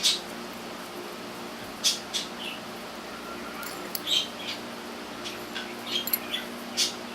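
A pet cat making a series of short, sharp noises at irregular spacing, the loudest at the very start, about two seconds in, about four seconds in and near the end, over a steady low hum.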